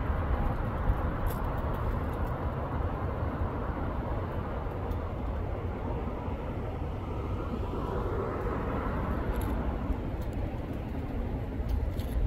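Steady low outdoor rumble and hiss, swelling a little about two-thirds of the way through, with a few faint ticks.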